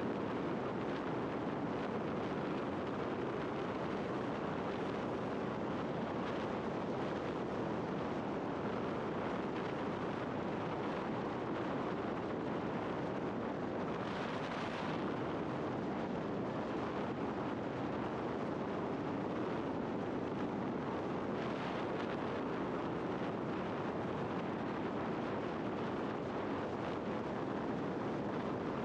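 Steady rushing wind and road noise from riding a scooter at a constant cruising speed, with no engine tone. Brief swells of hiss come about halfway through and again about three-quarters through.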